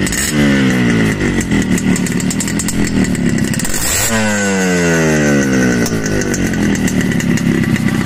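A motorcycle engine revved in sharp throttle blips, once at the start and again about four seconds in, its pitch falling away over a couple of seconds after each blip.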